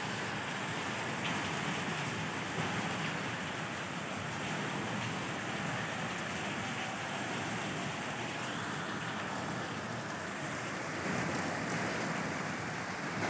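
Steady rain falling on rooftops, an even hiss that holds at one level throughout.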